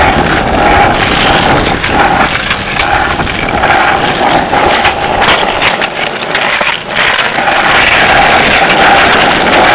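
Skateboard wheels rolling on rough asphalt, a loud steady roar close to the microphone, with scattered sharp clicks throughout.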